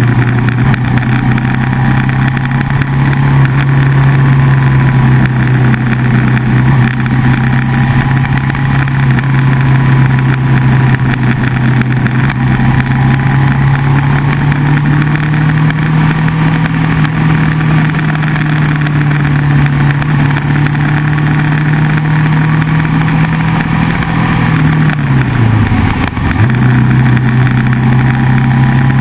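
Motorcycle engine running steadily at cruising speed, with wind and road noise. The engine note climbs a little partway through, then drops sharply for about a second near the end and picks back up.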